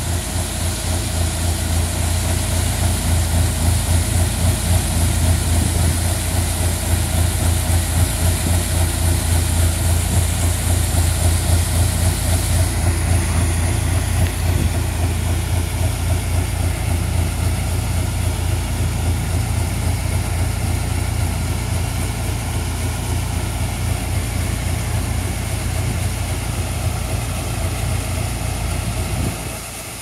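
A John Deere combine's engine running steadily at close range, a deep pulsing hum with a hiss on top that fades about halfway through. The sound drops noticeably just before the end.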